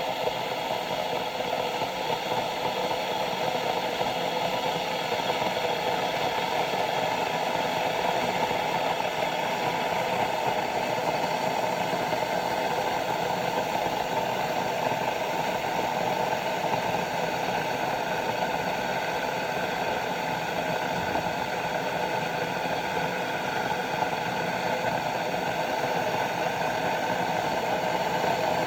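Bodum gooseneck stainless-steel electric kettle heating water: a steady rumbling hiss with a faint rattle as the water comes toward the boil, building slowly.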